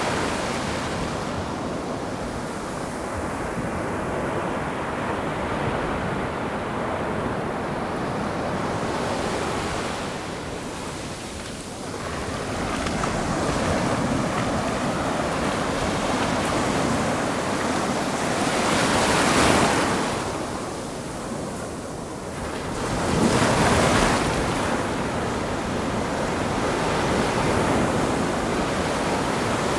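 Ocean surf: a steady wash of waves, with two louder breakers crashing a few seconds apart about two-thirds of the way through.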